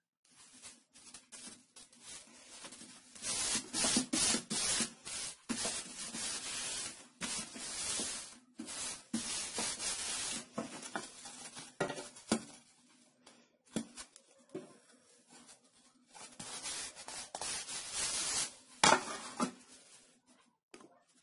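Palms rubbing a printed paper pattern flat onto a plywood sheet: dry swishing strokes of paper on wood in two long spells, with a few sharp taps, the loudest near the end.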